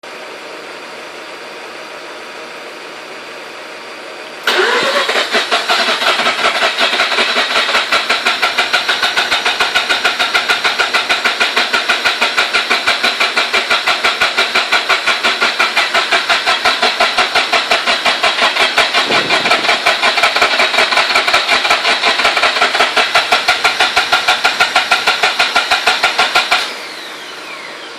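Mazda RX-8 two-rotor Wankel (rotary) engine being cranked by the starter motor with an even, fast pulsing rhythm for about 22 seconds without catching: the engine won't start. A steady hum comes before and after the cranking, and the cranking cuts off suddenly.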